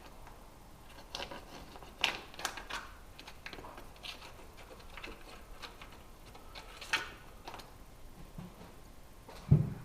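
Scattered light clicks and taps at an uneven pace, with a single dull thump near the end.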